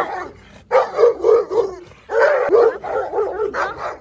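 Dogs fighting, barking furiously in two flurries of quick barks: the first a little under a second in, the second from about two seconds.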